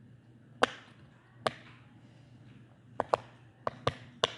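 Gummy bear popper fidget toy set to its loud side, its bubbles pressed one at a time: about seven sharp pops, two in the first second and a half and a quicker run of five in the last second and a half.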